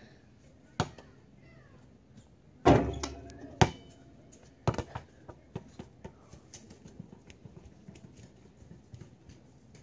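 Basketball hitting the hoop and the pavement: a bounce, then a loud clang against the hoop about three seconds in that rings on briefly, a hard bounce just after, and from about halfway a run of smaller bounces that fade as the ball settles.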